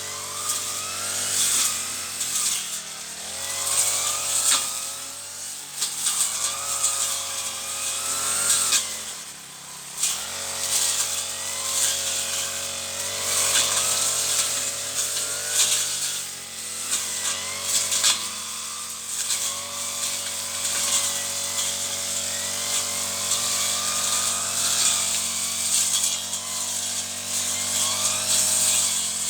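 Petrol brush cutter engine running at high speed while cutting weeds, its revs rising and sagging every couple of seconds as the head bites into growth, with a brief easing off about nine seconds in. Scattered sharp ticks of cut material striking the guard.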